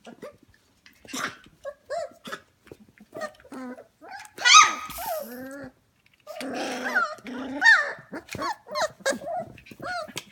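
Young F1 Goldendoodle puppies, about 25 days old, yipping, whining and squealing with little growls, many short high calls overlapping in an irregular chorus. The loudest burst comes about four and a half seconds in, with another busy stretch around seven to eight seconds.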